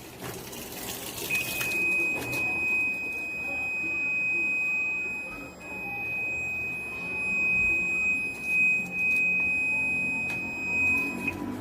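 A steady high-pitched tone, held for about ten seconds, then cutting off, over a varying background.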